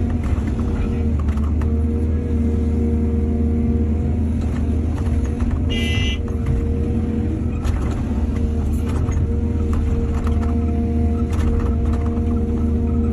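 Excavator's diesel engine running steadily with a deep drone, with scattered knocks and clanks from the working machine. A brief high-pitched squeal about six seconds in.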